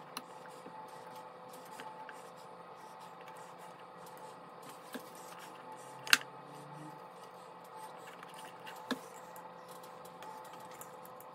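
Quiet handling noises as canned pineapple slices are laid into a metal bundt pan: a few light clicks and taps, the sharpest about six seconds in and another near nine seconds, over a steady faint hum.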